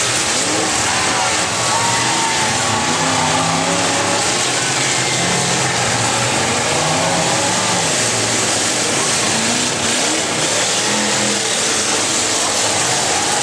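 Several full-size demolition derby cars' engines revving together in a loud, steady din, their pitches rising and falling over one another.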